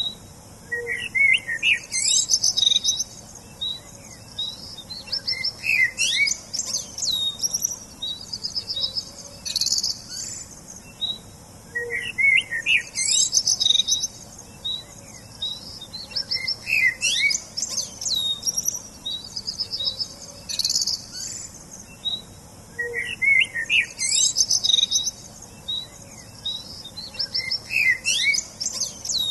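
Songbirds chirping and singing, with short whistled notes, quick sweeping calls and rapid trills overlapping. The same run of calls comes round again about every eleven seconds, as in a looped recording.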